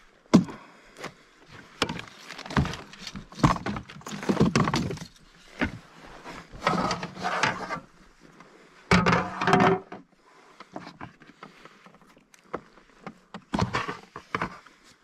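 Irregular knocks, rattles and rustles of fish handling in a kayak: a smallmouth bass is worked out of a landing net with pliers, then set on a measuring board. The loudest clusters of knocks come at about a second in, around the middle and near the end.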